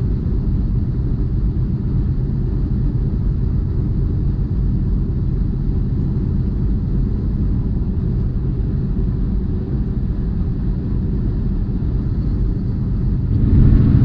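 Tractor-trailer's diesel engine and road noise, heard from inside the cab while driving: a steady low rumble that grows louder about a second before the end.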